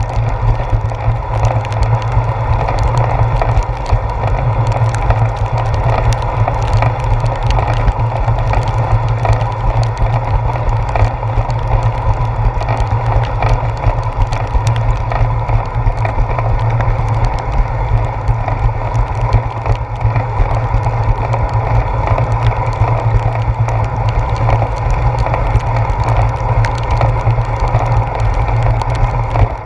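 Riding noise picked up by a handlebar-mounted action camera on a bicycle on a wet path: a loud, steady low rumble of wind and road vibration, with a steady hum and many small rattling clicks throughout.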